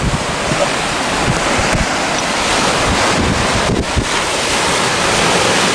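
Ocean surf breaking and washing over shore rocks, a steady rush of water, with wind buffeting the microphone in irregular low gusts.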